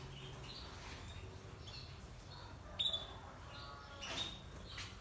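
Caged canaries chirping, with short scattered high call notes and brief twittering; one sharper call comes about three seconds in and another about four seconds in.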